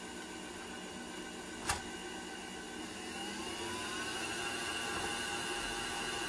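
A 1980s Oster Regency Kitchen Center stand mixer's motor is running, its beaters turning through mashed potatoes in a glass bowl. About three seconds in, the motor's pitch glides up and it gets louder as the speed dial is turned up. A single sharp clink comes a little under two seconds in.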